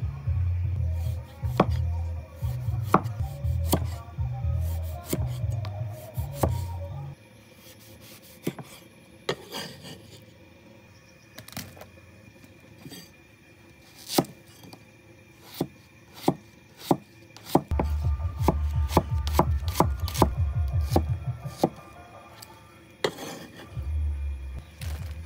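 Cleaver chopping on a wooden chopping board. There are scattered single chops, then a fast run of quick chops in the second half. Background music with a low bass plays at the start and again near the end.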